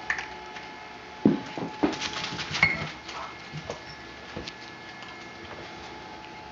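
Puppies scrambling and tussling on spread newspaper: paper rustling and paw patter, with a burst of sharp knocks and bumps between about one and three seconds in.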